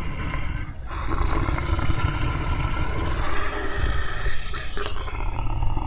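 Brown bears growling as they wrestle and spar, a continuous rough, deep growl.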